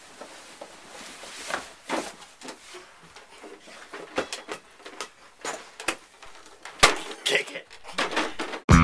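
Camera handling noise: scattered small knocks, taps and rustling as the camera is moved and brushed by clothing, with one sharper knock about two thirds of the way in.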